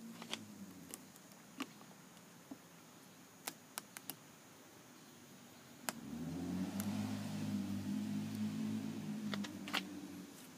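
Fishing line being flossed through the foam adhesive tape behind a car's rear bowtie emblem, heard as scattered small sharp clicks and taps from the gloved hands and the line spool. From about six seconds in, a steady low hum rises for about four seconds and then fades.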